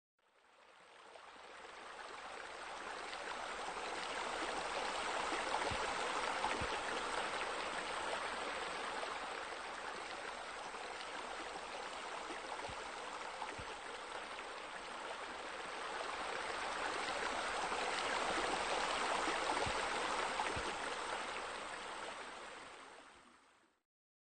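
Running water, as from a pool and spa water feature: a steady splashing rush that fades in, swells twice and fades out again.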